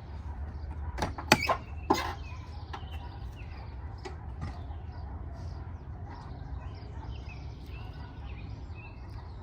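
A handful of sharp knocks about a second in, over a steady low hum, with faint bird chirps.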